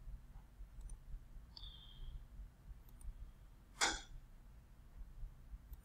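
Faint computer mouse clicks while menus are picked in CAD software, with a brief high tone about a second and a half in and one short, sharp, louder sound just before the four-second mark.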